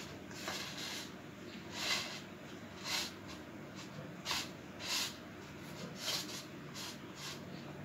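Steel fork pressing crimp marks around the edge of a stuffed kachori's dough on a ceramic plate: about six soft scrapes, roughly one a second.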